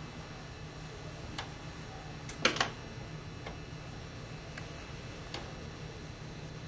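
Wooden-gear grandfather clock ticking, sharp clicks about once a second, with a louder cluster of clacks about two and a half seconds in.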